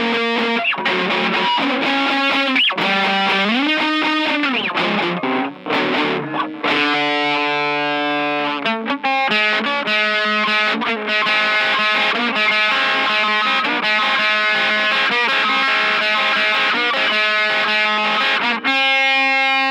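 Instrumental section of a song: a distorted electric guitar plays a lead line with bent notes, holds a chord about seven seconds in, then runs through quicker notes before a new sustained note near the end.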